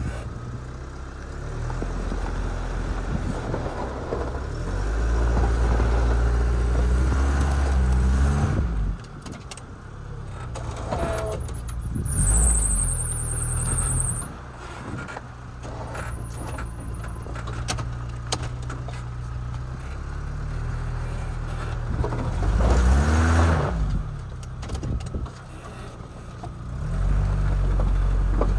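Chevy Tracker engine running and revving up and down several times, as when working a snow plow. A brief high-pitched whine sounds about halfway through.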